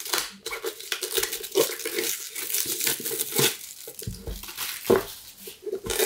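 Clear plastic wrap crinkling as it is peeled off a cardboard gift box, with irregular crackles throughout. Two dull knocks from the box being handled come about four and five seconds in.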